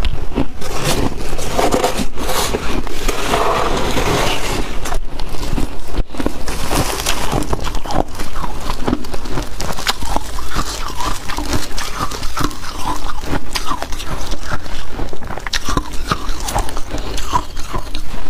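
Freezer frost scraped by hand from a chest freezer, then bitten and chewed close to the microphone: dense, continuous crunching and crackling of ice, with separate crunches in the second half.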